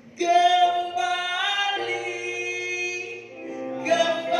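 A woman singing into a microphone with other voices, in long held notes that change pitch every second or two; a lower steady note joins about two seconds in, and a new, louder phrase begins near the end.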